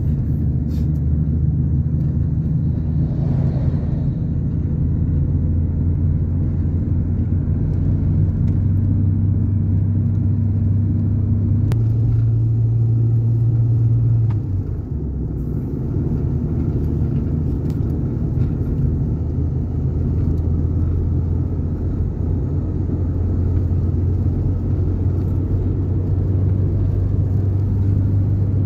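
Steady low drone of a car driving at highway speed, heard from inside the cabin: engine hum and tyre and road noise. About halfway through, the engine note rises slightly for a couple of seconds, then drops away and the sound briefly gets a little quieter.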